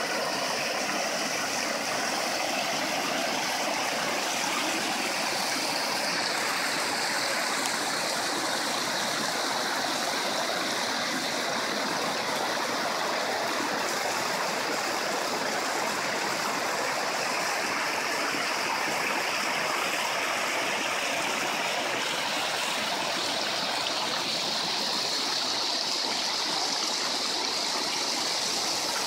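Water pouring over a low concrete weir and splashing into churning water below, a steady rushing noise with no change throughout.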